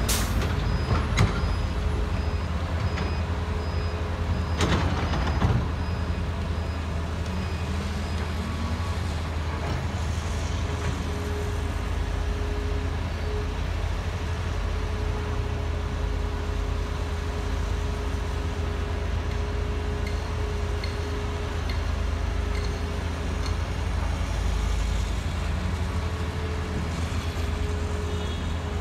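Caterpillar 330B excavator's diesel engine running steadily as it swings and loads soil into a dump truck. Heavy knocks come at the start and again about five seconds in as a bucketload of dirt drops into the truck bed.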